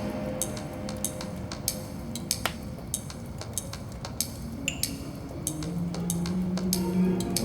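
Background music in a quiet passage: sparse, light ticking percussion with a metallic ring. A low sustained bass note comes in about five and a half seconds in.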